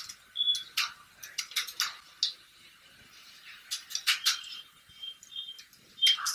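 Computer keyboard keys clicking in irregular runs of typing, several keystrokes a second.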